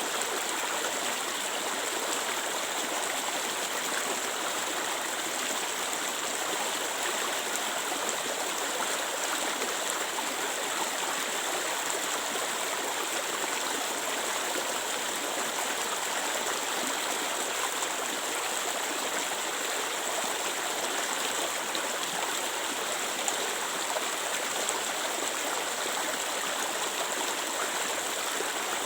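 Clear water flowing in a stream, a steady rushing babble with no breaks.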